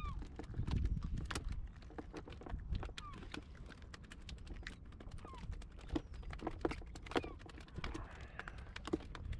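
Irregular taps and knocks of freshly caught mackerel being unhooked and flapping against the inflatable dinghy and bucket, with a few short falling squeaks and a low rumble of wind on the microphone.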